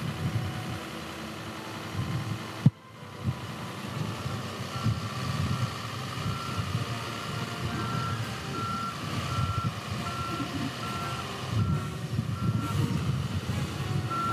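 Cleango 550 compact street sweeper running while its hopper is raised, with a low machine rumble and a short warning beep repeating about twice a second from about five seconds in. A single sharp knock about three seconds in.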